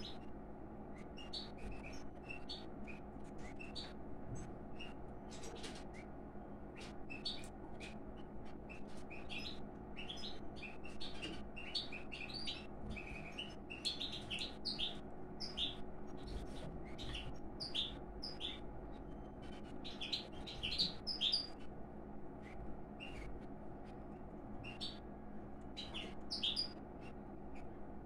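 Pine grosbeaks giving many short, high chirping calls in quick runs, louder and denser in the middle, as the male courts the female. A faint steady hum lies underneath.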